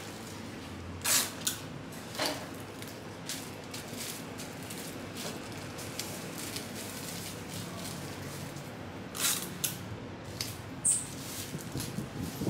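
Paper sheets crinkling as durian flesh is wrapped by hand: four short rustles, over a steady background hum.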